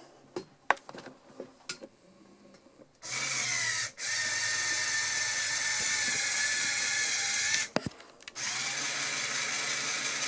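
Lego linear actuators driven by small electric motors, turning to work the lift's pulleys: a steady geared whine. It starts about three seconds in, stops briefly just before eight seconds, then runs again.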